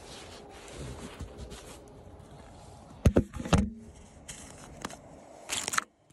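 Cooking utensils and a spice container being handled while spices are added to the pan: two sharp knocks about three seconds in and a brief rustling shake near the end, then the sound cuts off suddenly.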